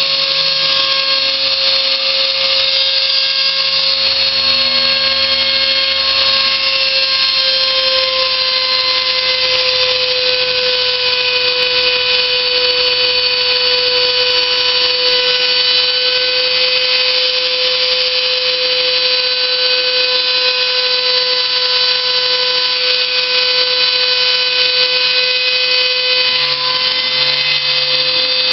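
Homemade CNC machine running: a steady, loud motor whine that drifts slightly in pitch, with lower tones that shift every few seconds as it moves.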